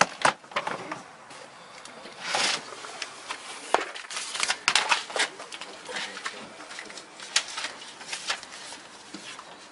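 A hard plastic power-tool carrying case being handled: scattered clicks and knocks of the case and lid, with a short scrape a little after two seconds.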